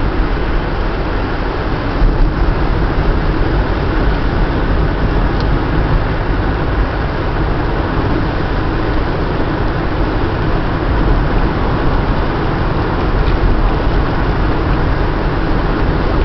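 Steady road and engine noise of a moving car heard from inside the cabin, a loud, even low rumble with tyre and wind hiss.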